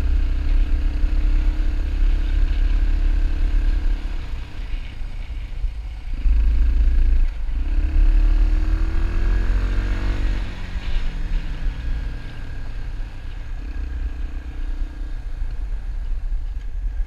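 Dirt bike engine running along a gravel road, with wind rumbling on the microphone. About eight seconds in the engine pitch climbs as it speeds up, then settles to a steadier, slightly quieter run.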